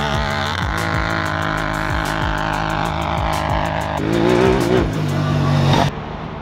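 Supercharged Honda Talon side-by-side's engine running hard under throttle as it powers up sand dunes, the revs rising and falling. It gets louder about four seconds in, then cuts off abruptly and drops to a quieter, duller engine sound.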